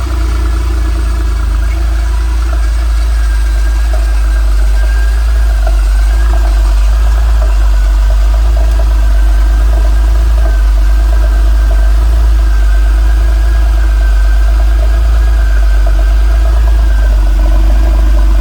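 1996 Porsche 911 Turbo's air-cooled twin-turbo flat-six idling steadily just after a cold start, the engine having sat all night.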